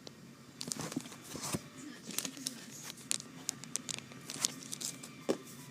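Plastic crinkling and rustling in short, irregular crackles, typical of squishy toys being handled in their plastic wrapping.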